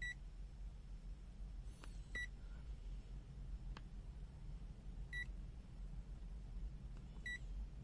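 CZD FS898 digital multimeter giving short, high beeps as its hold key is pressed: four beeps a few seconds apart, with faint button clicks between them.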